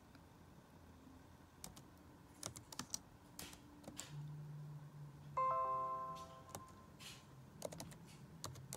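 Laptop keyboard keys clicking in short scattered runs as a text label is typed. About halfway through, a short electronic chime of several tones sounds at once and fades within about a second; it is the loudest sound.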